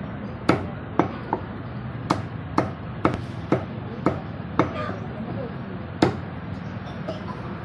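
Meat cleaver chopping chicken on a wooden log chopping block: about ten sharp chops, mostly about two a second, with a short pause before a last hard chop about six seconds in.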